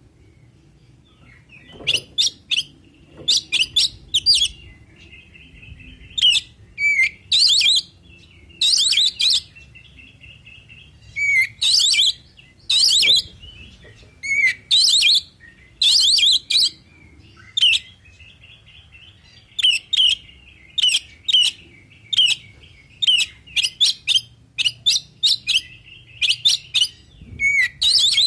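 Oriental magpie-robin (kacer) singing: loud bursts of quick, varied whistled phrases every second or two, with softer continuous twittering between them.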